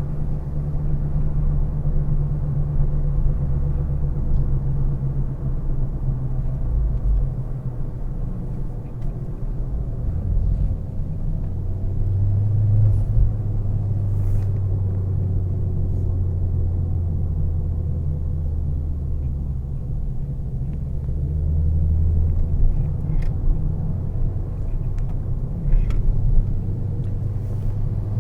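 Turbocharged car's engine and road noise while driving, a low steady drone that shifts in pitch a few times as the engine speed changes, with a few faint short clicks.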